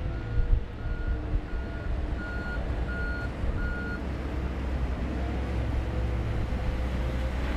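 Reversing alarm of a working earth-moving machine beeping about six times, roughly every two-thirds of a second, and stopping about four seconds in, over the steady low running of its engine.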